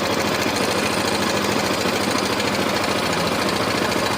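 Yamaha FZ 2.0's single-cylinder engine idling with a steady metallic rattle from the cam chain, which the mechanic suspects comes from a cam-chain tensioner that is not doing its job.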